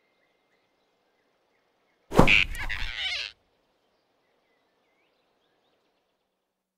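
Cartoon sound effect of a sudden grab about two seconds in: a sharp whoosh and thump that lasts about a second, then only faint forest ambience with a few tiny chirps.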